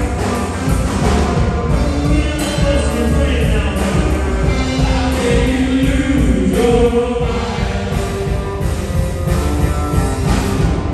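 Live rock band playing: electric guitars, bass guitar and drum kit, with long, bending guitar notes in the middle.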